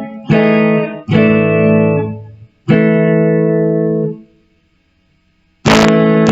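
Guitar chords strummed three times, each left to ring, the last one damped about four seconds in; after a short silence a new strum starts near the end. The chord is one the player takes for an A but is still working out.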